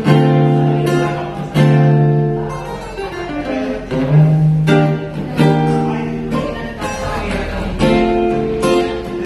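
Cutaway acoustic guitar strummed and picked. A chord is struck every second or two and left to ring out.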